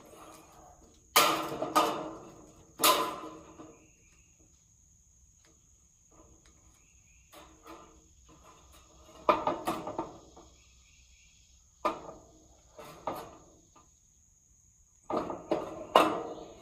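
Ribbed steel carport roof panel being shifted on the metal frame, giving a series of sharp clanks and rattles, the loudest about a second in and near the end. A steady high insect drone runs underneath.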